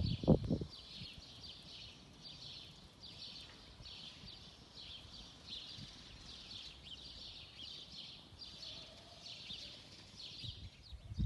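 Birds chirping steadily: runs of short high chirps repeating about twice a second. A brief low rumble of wind on the microphone comes just after the start.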